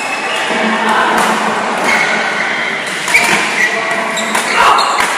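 Doubles badminton rally: racket strikes on the shuttlecock, with a sharp hit about three seconds in and more near the end, over the players' footwork on the court.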